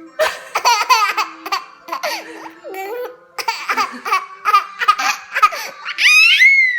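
Baby giggling in quick bursts of high-pitched laughter, ending in one long high squeal near the end.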